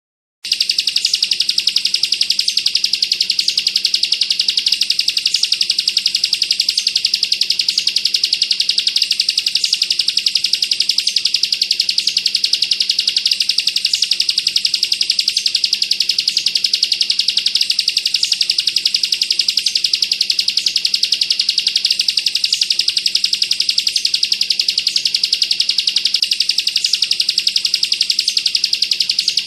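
Ciblek kristal (bar-winged prinia) singing its 'bren' song: a very rapid, dense, unbroken high-pitched trill that starts about half a second in.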